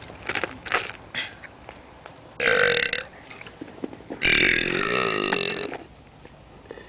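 A man burping loudly twice: a short burp about two and a half seconds in, then a long drawn-out one lasting about a second and a half.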